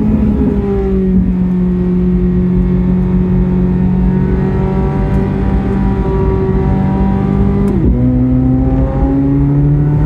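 Chevrolet Corvette C8 Z06's flat-plane-crank 5.5-litre V8 running at steady revs, its pitch sagging slightly. About three quarters of the way in it shifts up: the revs drop sharply and then climb again under acceleration.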